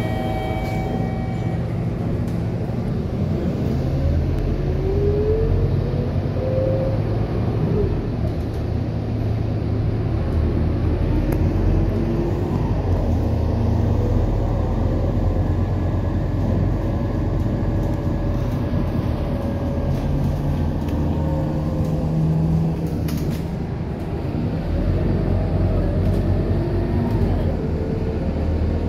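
Scania K230UB single-deck bus's five-cylinder diesel engine and drivetrain heard from inside the passenger cabin while driving: a steady low drone with a whine that rises and falls in pitch as the bus speeds up and slows.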